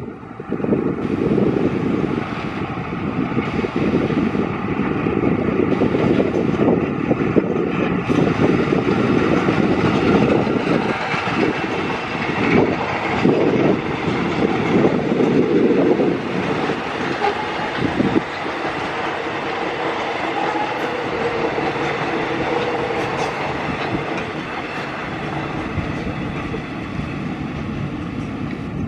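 A train passing, its wheels running loud and steady on the rails, easing off a little in the second half.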